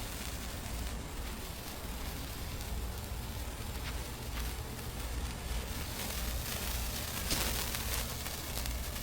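A handheld sparkler burning with a steady fizzing hiss and a few faint crackles, with a low wind rumble on the microphone.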